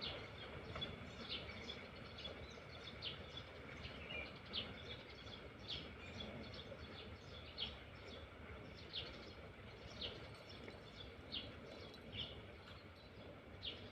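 A bird calling over and over, short, sharp high notes about once a second, over faint steady background noise.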